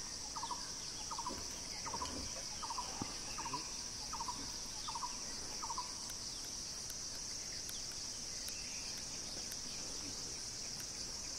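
Steady high-pitched insect drone, with an animal's short stuttering call of a few quick notes repeated about every two-thirds of a second, stopping about six seconds in.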